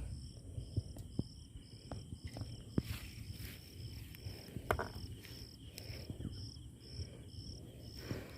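A cricket chirping steadily, a short high-pitched chirp about two to three times a second, with scattered faint knocks and clicks.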